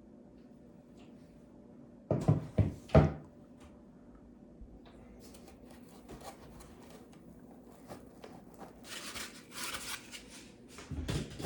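3D-printer parts and packaging being handled during unboxing: a few sharp knocks about two seconds in, then scattered clicks and rustling scrapes.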